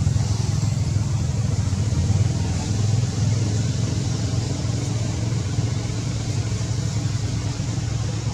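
An engine running steadily with a low, even hum that does not rise or fall.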